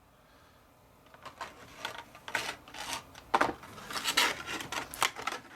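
Packaging being pulled off a boxed model locomotive: irregular rubbing and scraping strokes that start about a second in.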